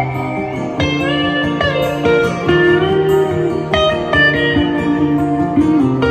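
Live band playing an instrumental guitar passage: a lead guitar plays held notes that slide and bend in pitch over guitar accompaniment.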